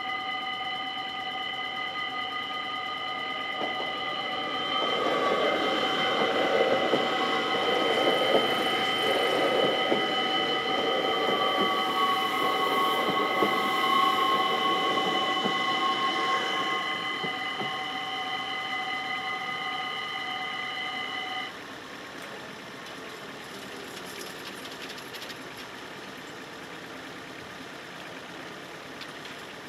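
Dutch level-crossing bells ring steadily while an NS Sprinter electric train passes, its rumble on the rails swelling from about five seconds in and fading out by about seventeen seconds. The bells cut off suddenly about two-thirds of the way through, leaving a quieter background as the barriers go up.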